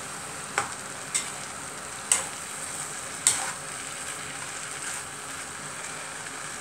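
Chicken and mixed vegetables sizzling steadily in a pan as they are stirred, the stirring utensil knocking sharply against the pan four times in the first few seconds.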